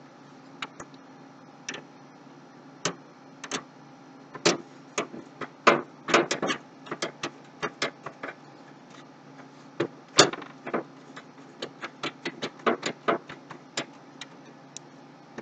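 Irregular sharp metallic clicks and taps of a screwdriver and screw against the computer case and motherboard while a motherboard screw is being fitted into its standoff. The clicks come in uneven clusters, busiest from about four to seven seconds in.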